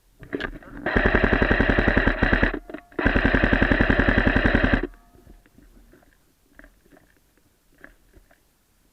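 Airsoft gun firing on full-auto in two long rapid bursts with a short break between them, followed by a few faint scattered clicks.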